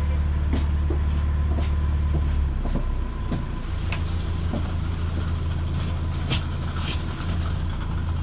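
Inside an Alexander Dennis Enviro400H MMC hybrid double-decker bus under way: the steady low drone of its drivetrain, which drops and changes about two and a half seconds in, with scattered rattles and knocks from the body and fittings.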